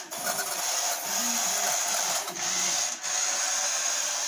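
Small electric motor and plastic gearbox of a vintage remote-control toy car running with a steady raspy whir. It dips briefly three times.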